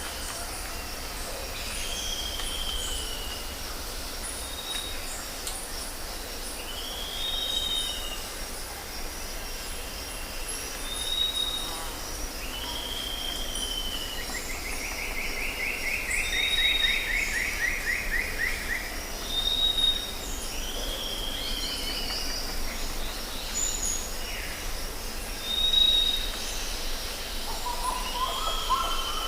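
Birds calling: short arched notes repeating every couple of seconds, alternating with brief high whistles, with a longer buzzy, falling trill about halfway through. A steady low rumble of background noise runs underneath.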